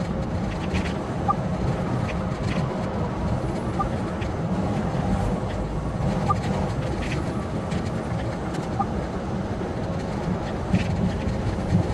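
Steady road and engine rumble inside a semi truck's cab at highway speed, with a faint short tone repeating about every two and a half seconds.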